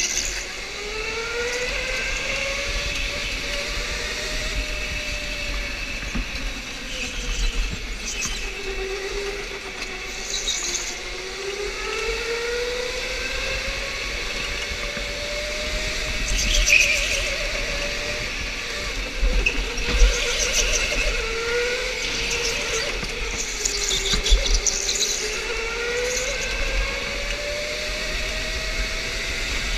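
Electric go-kart motor whine, rising in pitch as the kart accelerates and falling as it slows, several times over. Short high tyre squeals come now and then as the kart turns through corners, over a low rumble.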